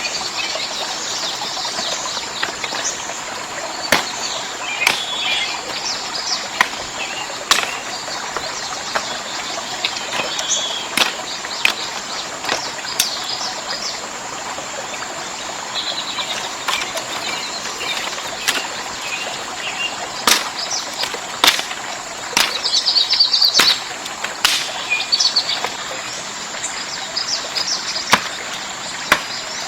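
Outdoor forest ambience: a steady hiss with birds chirping now and then, broken by sharp knocks or taps every second or two.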